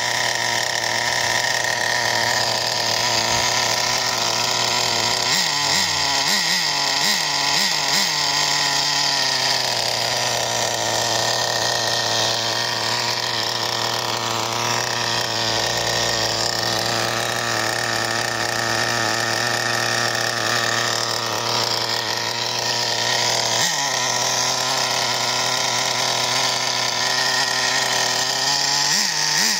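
Small two-stroke nitro glow engine of a radio-controlled truck running steadily at idle, restored after six years in storage. A few quick throttle blips make the pitch rise and fall about a fifth of the way in, one more blip comes past three-quarters of the way, and the revs swing up again near the end.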